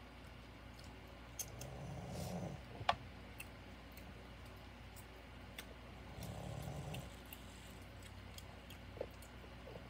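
Soft breathing close to the microphone, two slow breaths about four seconds apart, with scattered small clicks and taps from handling, the sharpest about three seconds in.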